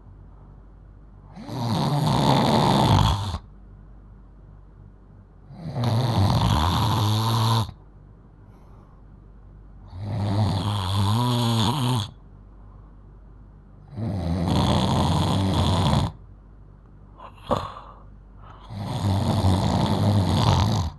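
A 12-year-old girl snoring very loudly: five long snores about four seconds apart, each lasting about two seconds. A short sharp sound comes between the last two.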